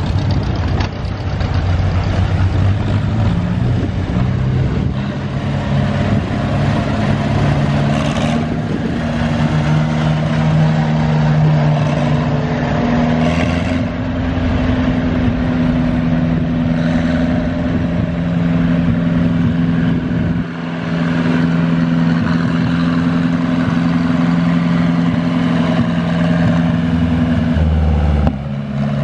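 Farm tractor engines, John Deeres among them, running steadily at low speed as the tractors pass one after another. The engine hum is steady, with a brief drop about twenty seconds in and a change in pitch near the end as the next tractor comes by.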